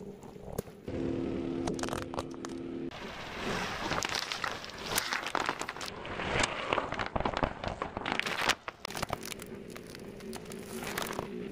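A car tyre rolling slowly over plastic toys and squishy balls, crushing them with dense, irregular crackling and crunching of breaking plastic. A steady low hum is heard for a couple of seconds near the start.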